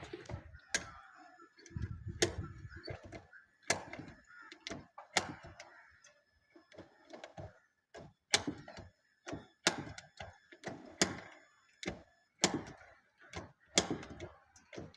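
Ratcheting PPR pipe cutter cutting through a PPR water pipe, giving a sharp click each time its handle is squeezed, roughly one every second and a half.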